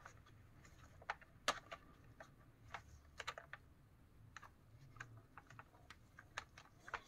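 Faint, irregular small plastic clicks and taps from a Lexus LX470 instrument cluster being handled and clipped back together as its new gauge dial faces go in.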